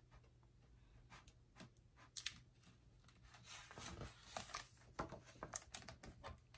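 Faint rustling and light clicks of a picture book's paper page being handled and turned, starting about halfway through after near silence.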